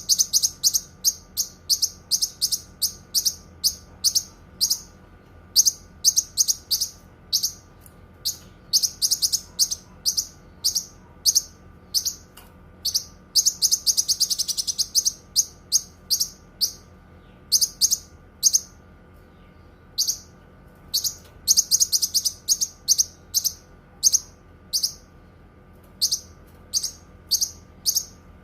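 Cucak kinoi singing: high, sharp chirps repeated in quick clusters, broken by short pauses, with a longer rapid trill about halfway through and another about three-quarters of the way in.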